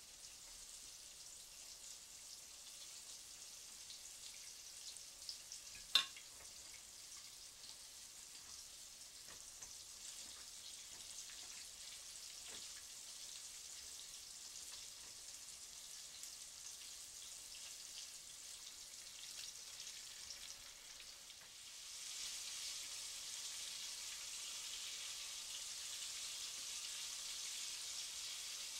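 Chicken strips frying in hot vegetable oil in a Dutch oven: a steady high sizzle that grows louder about two-thirds of the way through. There is one sharp clink a few seconds in.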